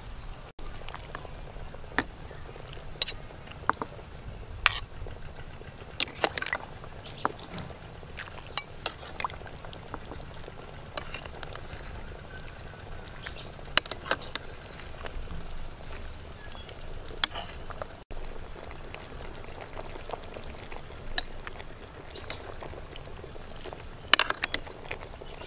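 Soup being ladled from a steel pot into a ceramic bowl: liquid pouring, and a metal ladle clinking sharply against the pot and bowl many times.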